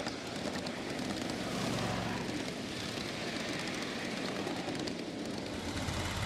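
Steel wheels of a 7½-inch-gauge ride-on miniature train rolling along the track: a steady rattling rumble with fast, fine clicking. It swells slightly about two seconds in as a small locomotive passes on the next track.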